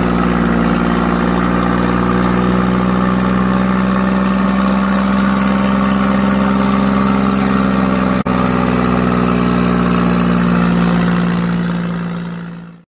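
A tractor's diesel engine running at a steady speed, with a brief dropout about eight seconds in and fading out near the end.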